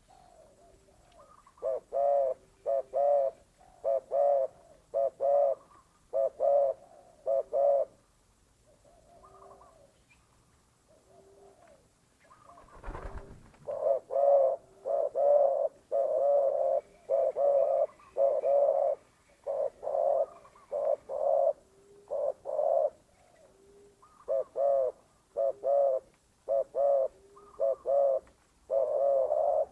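Spotted dove (terkukur) cooing: phrases of short, repeated coos with brief pauses between them. A low thump sounds about 13 seconds in.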